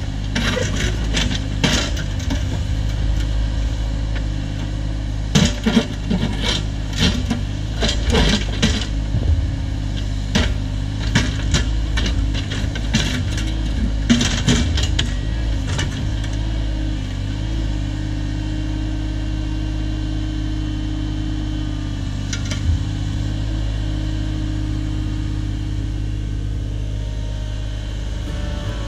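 Cat 304 mini excavator's diesel engine running steadily, with a string of knocks and clatters from digging in brush and rock through the first half or so. After that the machine settles into a steady hum with no impacts.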